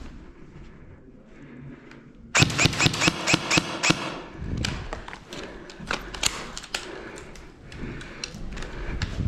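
An airsoft gun firing a quick string of rapid shots, starting suddenly about two and a half seconds in and lasting about a second and a half, followed by scattered single clicks and knocks.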